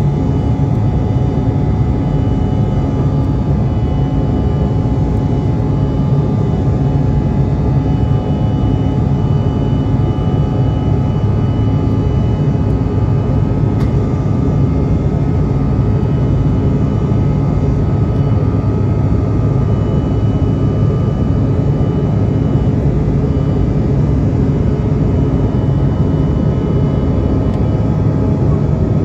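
Cabin noise inside a Bombardier CRJ-700 climbing out after takeoff: its two rear-mounted GE CF34 turbofans running at climb power, a steady low roar with a few steady high tones above it.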